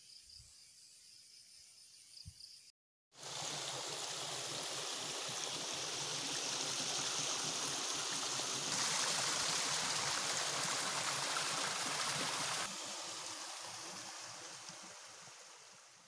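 Insects trilling faintly at first. Then comes a steady rush of a shallow stream running over rocks, which grows louder midway and fades away near the end.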